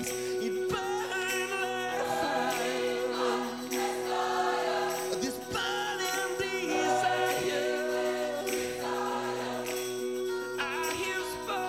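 A gospel choir singing a slow song together with a male lead singer and electric guitar, the voices sliding and wavering over steady held chords.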